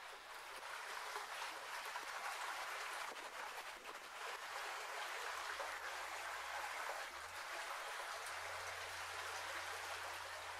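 Small stream of water running over rock, a steady hiss.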